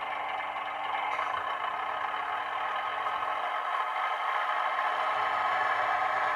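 Diesel railcar engine sound running steadily as the model Class 105 DMU moves off along the platform, growing slightly louder.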